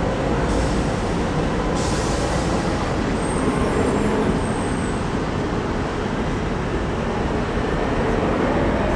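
Steady low rumble of a passing vehicle, with a faint high squeal about three to five seconds in.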